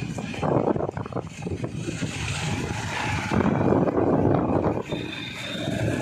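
Wind buffeting a phone's microphone over the running engine of a two-wheeler riding along an open road. The sound is loudest about halfway through and eases near the end.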